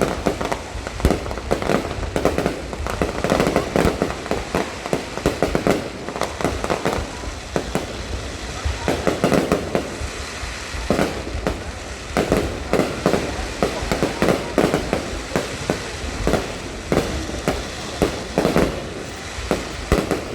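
Fireworks and firecrackers going off in a dense, irregular string of bangs and pops, several a second, without a break.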